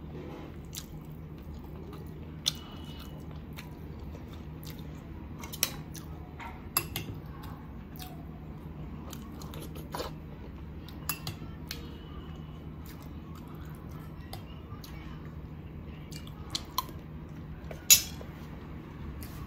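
Close-miked chewing and wet mouth sounds of a person eating chicken biryani by hand and a spoonful of boondi raita, with sharp smacks and clicks scattered throughout, the loudest near the end, over a faint steady hum.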